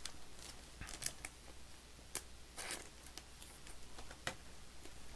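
Faint handling of baseball trading cards: a few light clicks and a short swish as the cards are moved.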